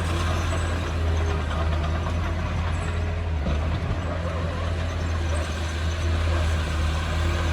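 Heavy diesel engine of earthmoving equipment running steadily, a low, even drone.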